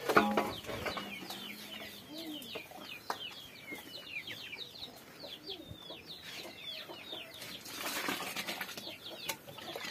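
Chickens clucking, with many short, high, falling chirps running throughout. A loud note comes right at the start, and a rustle about eight seconds in.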